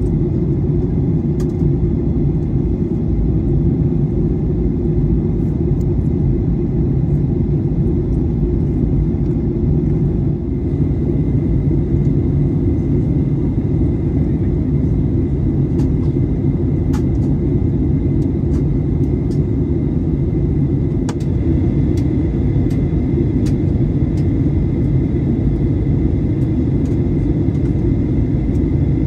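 Steady low rumble of a Boeing 737-800's cabin in flight: airflow over the fuselage and the drone of its CFM56-7B engines, heard from a window seat behind the wing. A faint high whine joins about ten seconds in.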